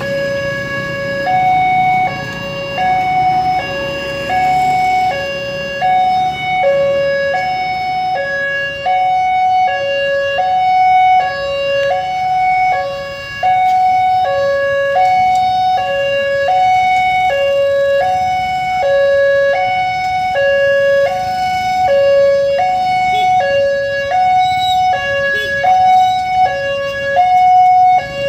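Railway level-crossing warning alarm sounding a two-tone electronic chime, alternating a low and a high note about every three-quarters of a second. It signals that the crossing is closing for an approaching train.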